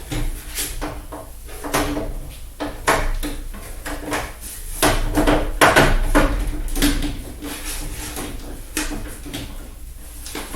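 Plastic light cover on a garage door opener being handled and pried at, giving a run of irregular clicks, knocks and rattles, busiest about halfway through, over a faint steady hum.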